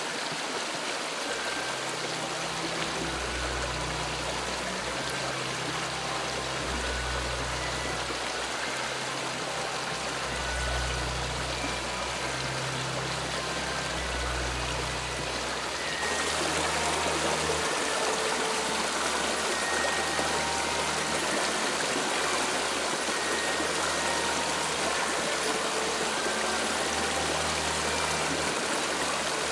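A fast-flowing river rushing steadily over rocks. About halfway through, the rush turns slightly louder and brighter.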